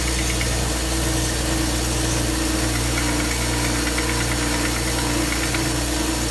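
Stationary power sander running steadily while wooden box drawers are pressed against it and sanded, with intermittent scratchy sanding contact.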